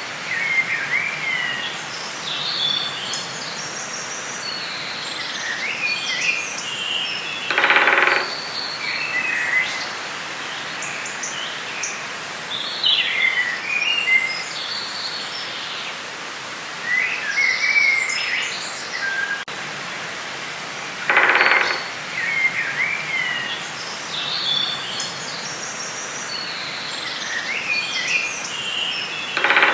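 Forest ambience: several birds chirping and trilling over a steady hiss. A louder, lower call sounds three times, each under a second long.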